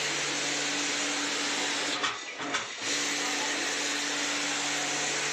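A steady machine hiss with a low hum underneath, briefly dropping away for under a second about two seconds in, then running on.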